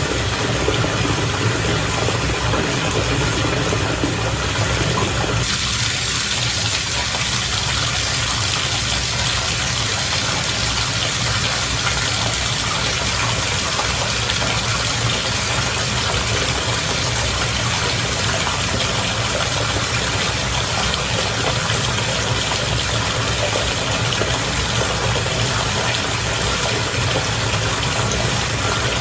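Bath water bubbling and rushing steadily over a low, even hum; about five seconds in, the hiss turns brighter.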